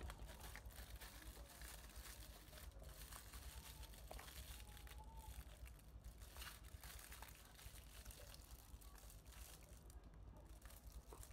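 Faint crinkling of aluminium foil as a shawarma wrap is rolled up in it, in scattered small crackles over a low steady hum.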